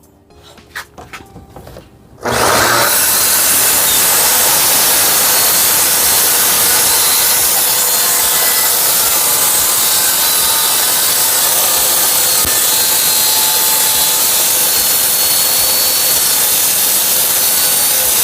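A few light handling clicks, then about two seconds in a corded track saw and its attached shop vacuum start together and run steadily through a test cut in wood.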